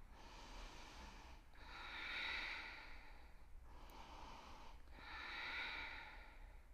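A woman's slow, steady breathing while holding a deep yoga twist: four long, soft breaths in and out, the louder ones peaking about two and five and a half seconds in.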